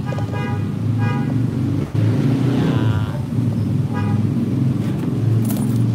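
Steady low engine rumble of a nearby motor vehicle, with several short high toots near the start, about a second in, and about four seconds in, and a longer wavering one near the middle.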